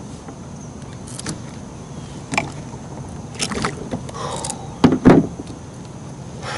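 Scattered knocks and clunks in a plastic fishing kayak as a big blue catfish that has just been landed is handled in the boat, with the loudest pair of knocks about five seconds in.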